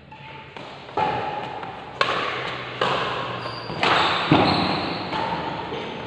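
Badminton rackets striking a shuttlecock in a fast rally: about five sharp hits roughly a second apart, each ringing on in the echo of a large hall.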